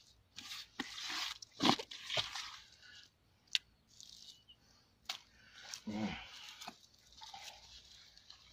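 A hand scraping and patting dry, crumbly soil around the rim of a plastic bucket sunk in the ground: irregular gritty scratches, with two sharp clicks a few seconds in. About six seconds in, a short low voice-like sound.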